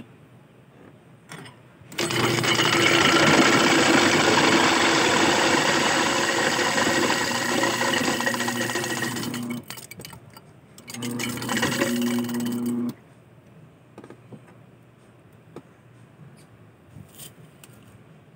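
Electric ice crusher (ice shaver) motor running and crushing ice cubes, with a steady motor hum under the noise of the ice. It runs for about seven and a half seconds, stops, then runs again for about two seconds. The motor, which had only hummed without turning, is working again after repair.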